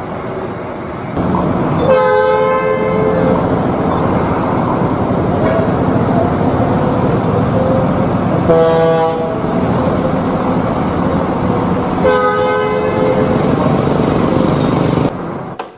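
Bus multi-tone air horn sounding three times, each blast about a second long, over the steady noise of a bus engine running; the middle blast is higher-pitched. The sound cuts off suddenly near the end.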